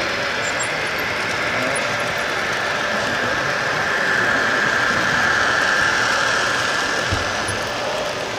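HO-scale model trains running on the layout's track: a steady rolling clatter of many wagon wheels with an electric motor whine that swells from about four to six seconds in.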